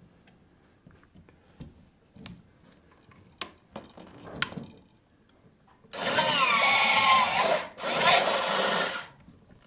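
Copalum crimping tool crimping a Copalum connector onto an aluminum wire and its copper pigtail: a few light clicks, then the tool runs loudly in two bursts of about a second and a half each, with a falling whine.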